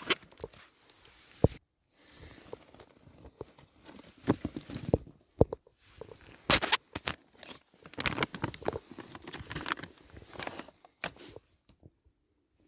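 Irregular rustling, crinkling and sharp clicks and knocks of camping gear being handled, in uneven bursts with short pauses.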